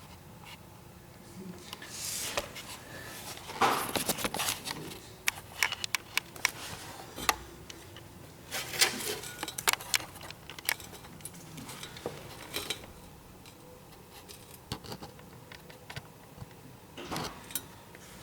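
Steel sockets clinking and rattling against each other in irregular bursts as they are sorted through by hand to find the right size.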